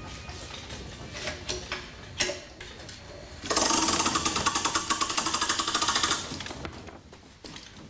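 Rope running through the pulley blocks of a DN iceboat's mainsheet as the line is hauled: a few single clicks, then a fast, even rattle of the blocks for nearly three seconds from about halfway through.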